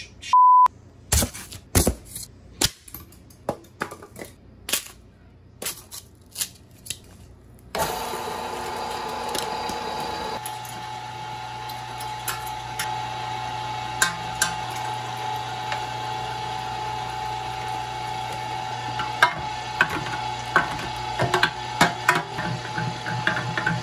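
A short high beep, then a string of sharp clicks and knocks; about eight seconds in, a Meat! Your Maker electric meat grinder starts and runs with a steady hum. A lower hum joins a couple of seconds later, with scattered clicks, as it grinds a frozen Salisbury steak dinner with mashed potatoes and green beans.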